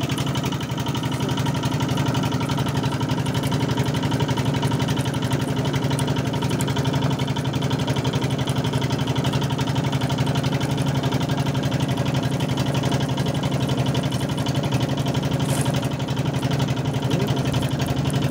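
Fishing boat's engine running steadily at one constant speed.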